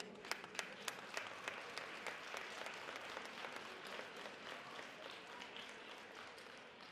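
Audience applauding, with a few sharp individual claps standing out in the first second or so, then slowly dying away.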